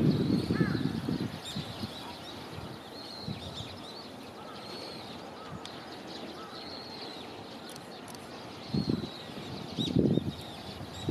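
Birds calling outdoors: short, high, arched notes repeating about once a second. Two louder low bursts come near the start and again near the end.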